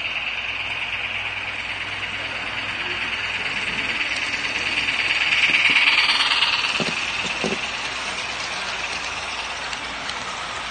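HO scale Athearn Genesis Big Boy model steam locomotive passing close by, its Tsunami sound decoder playing steam locomotive sounds through the model's small speaker over the rolling of the wheels on the track. It grows louder to a peak about six seconds in as the engine passes, then fades as the passenger cars roll by.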